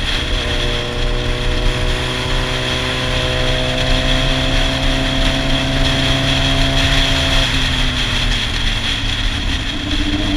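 Sport motorcycle engine pulling steadily at road speed, its pitch rising slowly, then dropping about seven seconds in as the throttle eases, and picking up again near the end. Steady wind rush on the helmet-mounted microphone runs under it.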